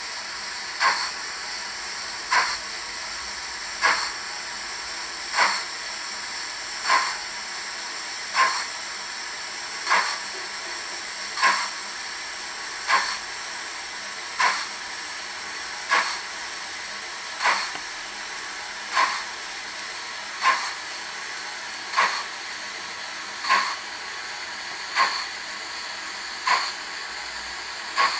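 Sound-fitted Dapol model of the 0-4-0 saddle tank locomotive Invincible playing a steady steam hiss, with a short chuff-like burst every one and a half seconds or so, evenly spaced.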